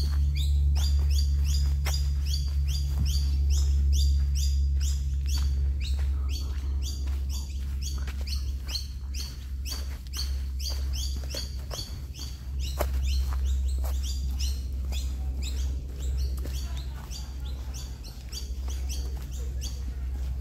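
A bird calling fast, repeated chirps that sweep downward, about three or four a second, without a break, over a steady low rumble.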